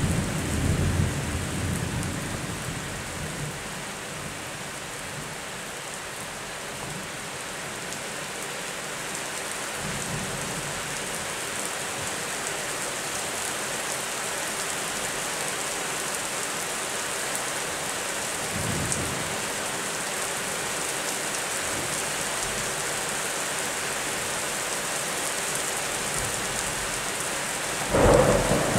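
Steady rain falling, with thunder rumbling at the start and dying away over the first few seconds. Fainter rumbles come about a third and two thirds of the way through, then a sudden loud thunderclap near the end.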